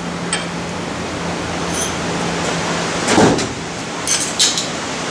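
A precision level being handled and set down on a lathe's cross slide and bed: a few light metal clicks, a dull knock about three seconds in, and quick clinks near the end. A steady workshop hiss and faint hum run underneath.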